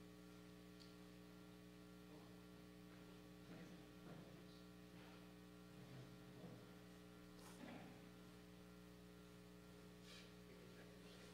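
Near silence with a steady electrical mains hum, broken by a few faint scattered taps.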